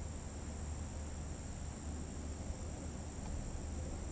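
Crickets and other insects chirring in a steady, continuous high-pitched chorus, over a steady low hum.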